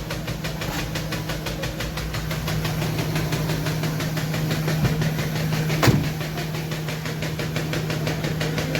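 Mahindra Bolero Power Plus BS6's three-cylinder diesel engine idling steadily, with a strong steady hum under its regular firing pulses, and one sharp click about six seconds in.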